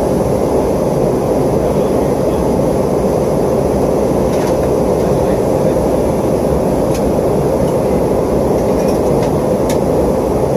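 Steady airliner cabin noise in flight: the even roar of the jet engines and airflow heard from a window seat inside the passenger cabin, strongest in the low-middle range with a deep rumble beneath.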